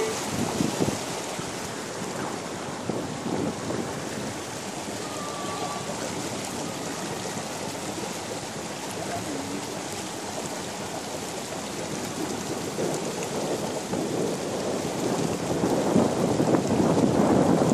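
Floodwater splashing and rushing along the side of a car as it wades through, an even watery hiss that grows louder about fifteen seconds in.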